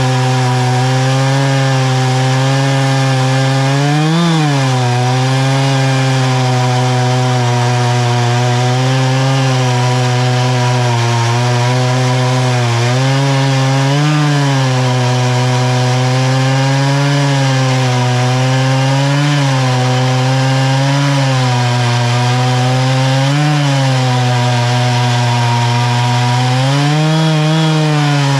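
Two-stroke chainsaw held at full throttle ripping lengthwise through an oak log in an Alaskan chainsaw mill. The engine note stays steady under load, dipping and recovering slightly every few seconds as the cut bites harder and eases.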